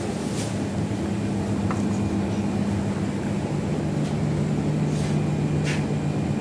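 Coffee vending machine running as it makes a latte: a steady motor hum whose pitch drops about three and a half seconds in, with a few light clicks near the end.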